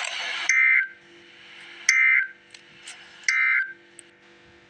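Emergency Alert System end-of-message code: three short, loud bursts of warbling data tones about a second and a half apart, signalling the end of the alert. A loud hiss cuts off as the first burst begins.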